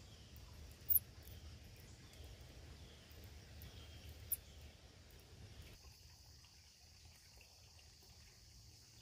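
Faint outdoor background noise with a low steady rumble, broken by two very short, high-pitched squeaks, one about a second in and one just after four seconds. The background drops quieter near six seconds.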